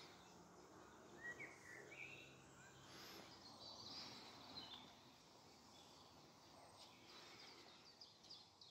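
Faint woodland ambience with a few quiet bird chirps.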